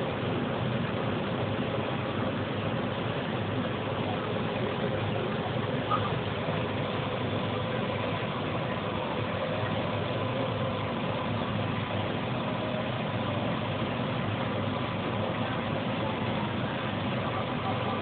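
Maize threshing machine running steadily, with a brief knock about six seconds in.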